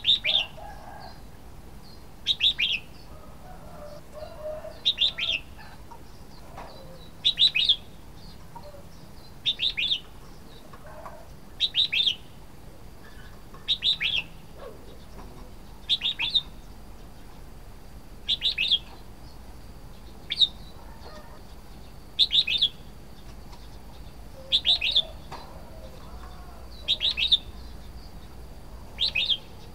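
Red-whiskered bulbul calling: a short, bright call of two or three quick notes, repeated about every two seconds, some fourteen times.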